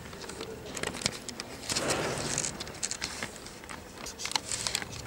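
Scattered short knocks and clicks from play on a sports hall floor, echoing in the hall, with a brief rush of noise about two seconds in.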